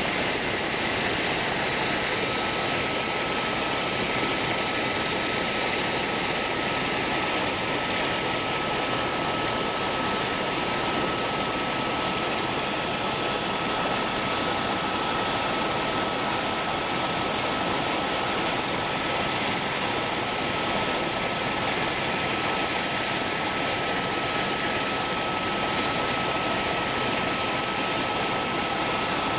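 Steady engine and air noise inside an aircraft cabin in flight, with a thin, steady whine running through it.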